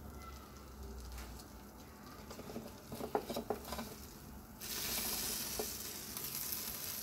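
A metal knife scrapes and clicks against the grill plate of an electric sandwich maker as toasted sandwiches are levered off, with a cluster of clicks about three seconds in. About four and a half seconds in, a steady sizzling hiss from the hot plate starts and keeps on.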